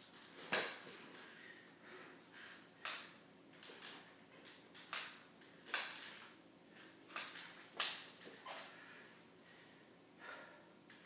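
Forearm crutch tips and feet locked in full hip-knee-ankle-foot orthoses (HKAFO braces) knocking and scuffing on a wooden floor in a slow, laboured gait. The knocks and short scrapes come irregularly, one or two a second, with a short pause near the end.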